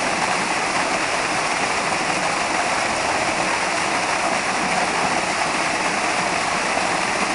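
Steady rush of water running over the rocks of a shallow artificial stream.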